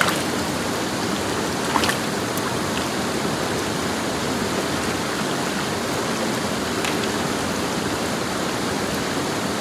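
Steady rush of a fast trout creek's flowing water, with one faint tick or splash about two seconds in.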